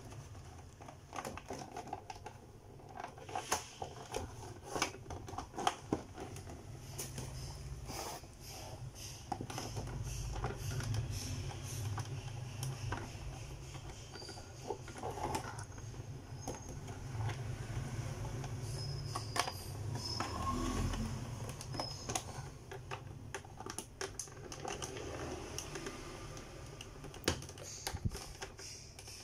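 Irregular clicking and light knocking of hard plastic as small red stopper pieces are worked into a Beyblade stadium, over a low rumble of handling.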